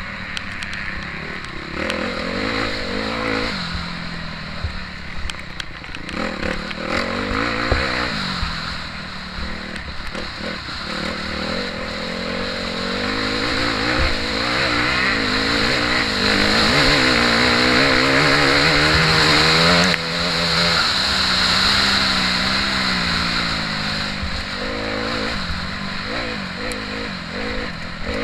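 Motocross bike engine revving hard and easing off again and again as it races around a dirt track, its pitch rising and falling with throttle and gear changes. It is loudest about two-thirds of the way through, then drops off abruptly.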